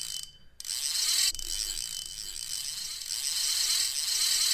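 Fast, high-pitched mechanical ratcheting, with a brief dropout just after the start.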